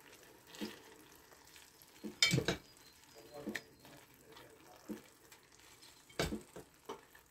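Pieces of raw lamb testicle being pressed by hand, one at a time, into a hot tomato sauce in a clay tagine: a scatter of soft wet squelches and light knocks, the loudest about two seconds in and again near six seconds, over a faint sizzle of the sauce on low heat.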